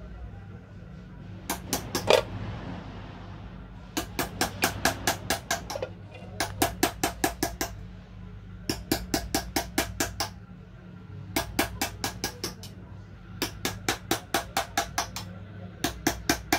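Small hammer tapping rapidly on metal in short bursts of about six strikes a second, with brief pauses between bursts: the sound of hand-engraving brass with hammer and chisel. A steady low hum runs underneath.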